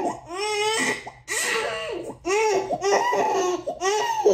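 A baby crying hard, a string of short rising-and-falling wails, loud, heard as a recording played as background noise and picked up through a headset microphone.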